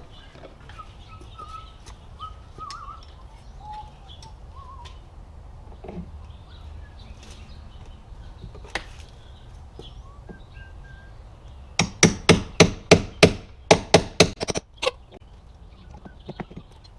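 A quick run of about a dozen hammer blows, roughly four a second, knocking on the nailed post and pry bar to free the nails, coming near the end after a quiet stretch. Faint bird chirps are heard earlier.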